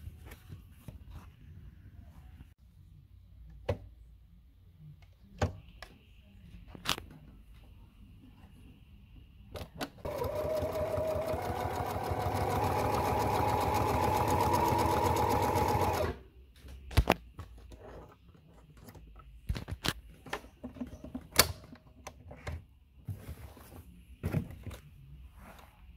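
Husqvarna Viking 610 electric sewing machine stitching through quilted leather for about six seconds, a fast even run of needle strokes that grows louder and then stops abruptly. Before and after the run there are scattered sharp clicks and knocks.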